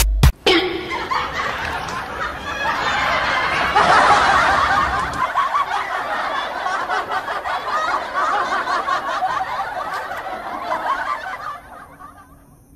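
People laughing and snickering without a break, fading away near the end.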